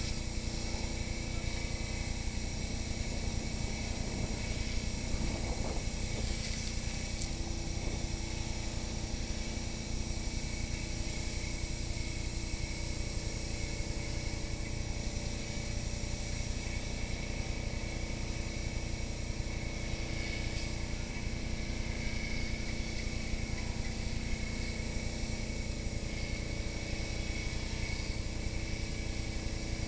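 Fire truck's engine and pump running steadily with a constant drone, over a steady hiss of spraying water streams.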